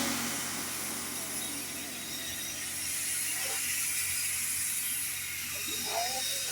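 Steady hiss from the whistle-blow rig just after a whistle is shut off, over a low steady hum, with faint voices in the background.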